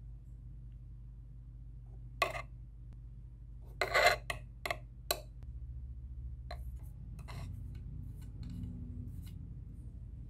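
Sand being added to a small glass tank and worked with a thin tool: a string of short scrapes and gritty rustles against the glass, the loudest a cluster about four seconds in, over a steady low hum.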